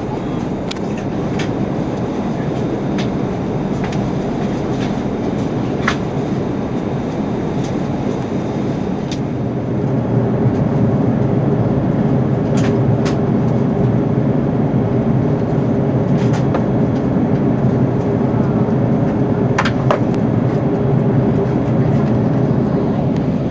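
Steady cabin noise inside an Airbus A340-300 on descent: engine and airflow rumble heard from a window seat beside the wing. About ten seconds in, a steady hum joins and the noise grows slightly louder; a few faint clicks of cabin fittings are scattered through it.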